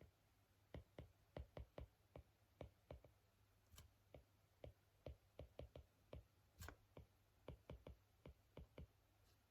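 Faint, irregular light taps, about three a second, with a couple of sharper clicks among them, from a hand working at a desk.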